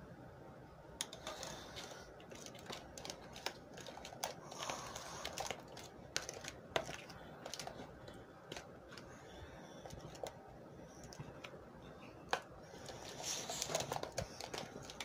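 Plastic utensil stirring glue slime in a plastic tub as the borax activator is mixed in, making quiet, irregular clicks and scrapes against the tub.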